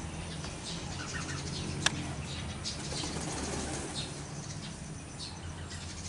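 Feathers rustling and wings flapping as a domestic tom turkey treads a hen during mating, over a steady low hum, with one sharp click about two seconds in.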